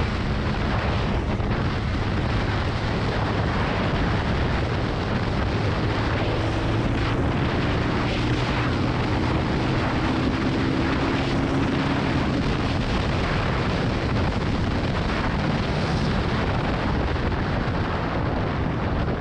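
Benelli TNT 25's single-cylinder engine running steadily while riding, mixed with heavy wind rush on the microphone.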